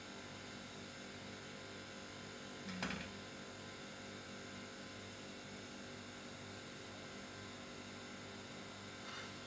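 Steady low electrical hum, with one brief sound about three seconds in.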